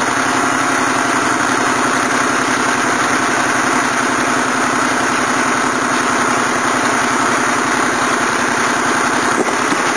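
Lucas Mill portable sawmill running steadily, its engine under load as the saw cuts a slab through a madrone burl.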